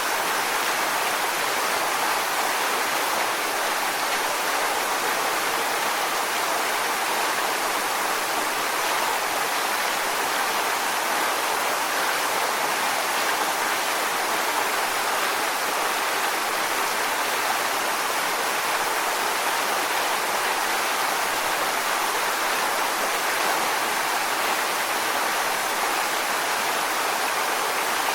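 Waterfall: water falling onto rocks in a steady, even rush, strongest in the mid and upper range with little low rumble.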